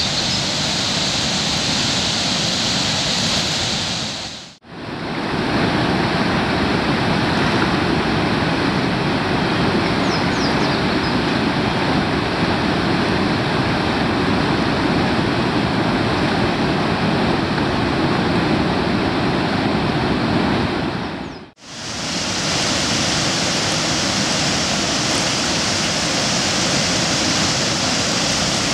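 Harpeth River water pouring out of the hand-cut Pattison Forge Tunnel flume as an artificial waterfall, churning into whitewater: a loud, steady rush. It fades out and straight back in twice, the middle stretch sounding fuller and deeper.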